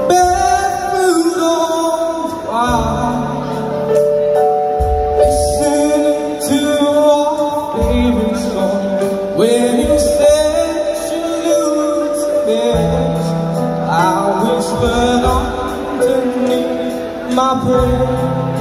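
A male singer singing live into a microphone, backed by keyboard and drums, amplified through PA speakers in a large hall.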